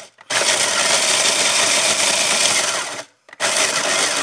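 Black & Decker Handy Chopper mini food processor running, its blade grinding tortilla chips into crumbs. It runs for nearly three seconds, stops briefly, then starts again.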